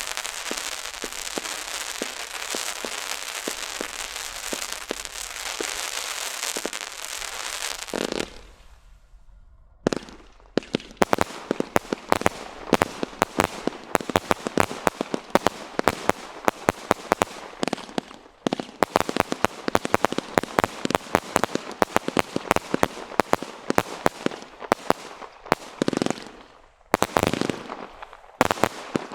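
Black Cat Apocalypse 170-shot single-ignition firework barrage firing. First comes about eight seconds of dense continuous crackle, then a short lull. From about ten seconds in, rapid volleys of sharp shots and bursts follow, with brief pauses.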